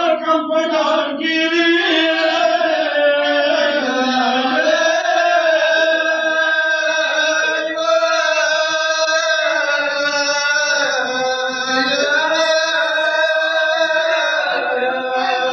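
Male voice chanting a Pashto noha, a Shia mourning lament, in long held notes with no percussion.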